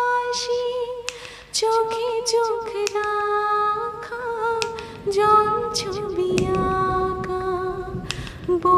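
A woman singing a Bengali song, holding long notes that step from one pitch to the next.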